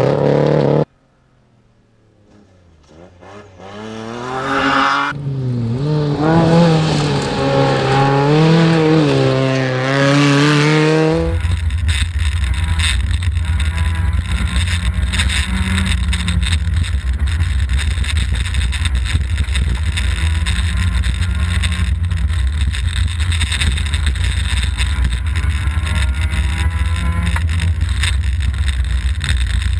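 Rally car engine on a gravel stage, growing louder as it approaches, its pitch rising and falling through gear changes. About eleven seconds in, the sound switches to inside a SEAT rally car at speed: a steady, heavy low rumble of engine and gravel road noise.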